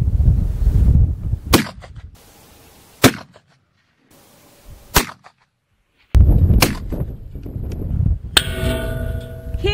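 Four sharp rifle shots from precision long-range rifles, with wind buffeting the microphone between them. Near the end a steel target plate rings after being hit.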